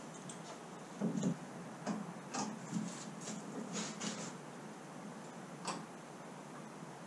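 Scattered light clicks and knocks of clamps being set and tightened along the edge of a wooden boat hull, with a heavier knock about a second in.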